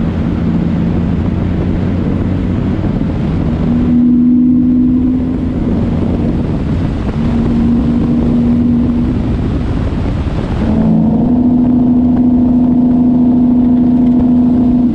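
Truck engine running while driving, over road and wind noise, with a steady droning hum that comes in about four seconds in, again around eight seconds, and holds from about eleven seconds with a fuller, richer tone.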